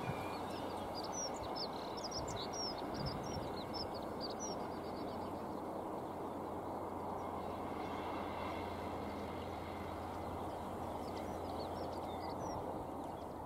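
Distant locomotive running, a steady low hum under outdoor wind noise, with small birds chirping over the first few seconds and again near the end.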